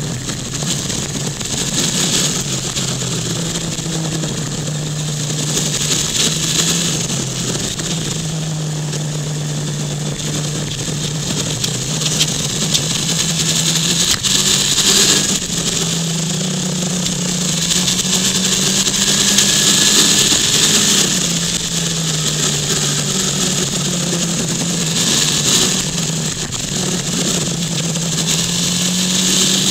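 Motor vehicle engine running at road speed, its pitch rising and falling as it works through a run of bends, over wind and road noise that swells and fades.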